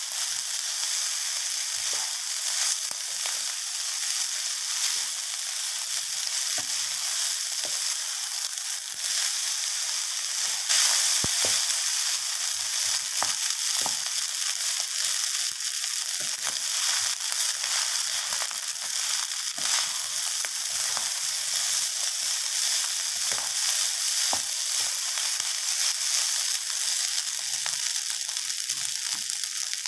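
Fried rice sizzling steadily in a non-stick wok as a wooden spatula stirs and turns it, with scattered light scrapes and taps of the spatula on the pan.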